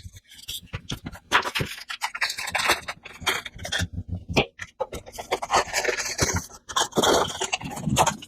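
Packaging being handled during an unboxing: irregular scraping, rubbing and rustling with short clicks and knocks.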